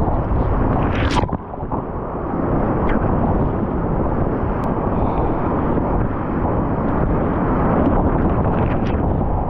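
High-water whitewater rapids rushing loudly and steadily around a kayak, close to the microphone, with one brief sharp sound about a second in.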